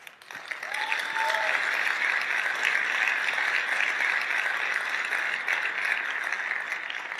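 Large audience applauding, starting about half a second in, holding steady and beginning to die away near the end.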